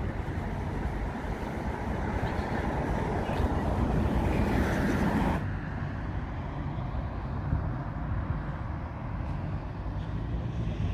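Road traffic on a busy street: a vehicle passing close, its noise building and then cutting off abruptly about halfway through. After that, quieter traffic noise with wind rumbling on the microphone.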